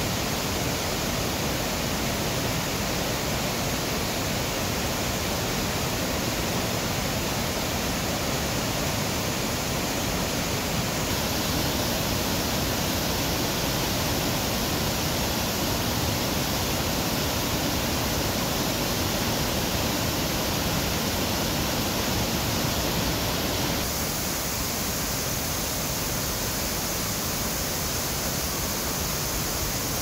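Waterfall: a steady, unbroken rush of falling water, full from deep rumble to high hiss, its high hiss shifting slightly about eleven and twenty-four seconds in.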